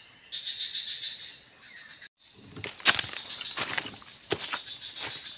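Steady high insect chorus of a tropical swamp forest, with a pulsing chirp under it for the first two seconds. The sound cuts out briefly about two seconds in and returns with a run of rustles and knocks, the loudest about three seconds in.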